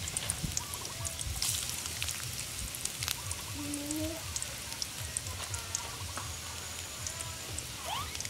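Ginger strips frying in hot oil in a wok: a steady scatter of small crackles and pops. A few faint short calls are heard in the background.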